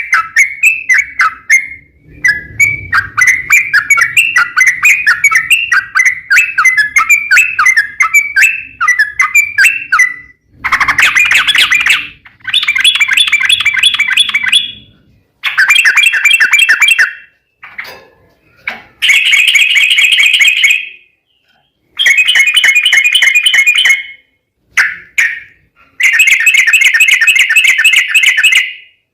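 Yellow-vented bulbul song: about ten seconds of quick chattering notes, then a run of long rolling trills, each one or two seconds long, with short pauses between.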